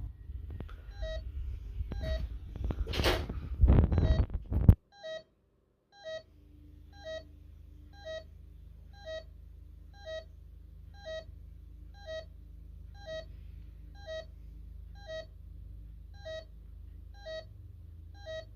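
Bosch GV4 alarm keypad giving short beeps about once a second: the entry-delay warning counting down after a delayed zone is tripped, before the alarm sounds. In the first few seconds there is louder clatter and knocking from handling.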